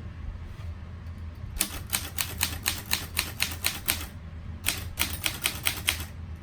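Typing on a 1937 Underwood Champion portable typewriter: keys struck in a quick run of about five clicks a second, starting about a second and a half in. The typing pauses briefly around four seconds, then resumes for another second or so.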